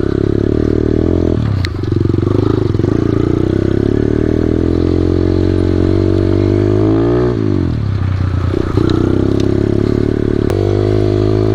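Small motorbike engine running steadily under way. The revs drop about seven seconds in and pick up again a second or so later, with a few sharp clicks.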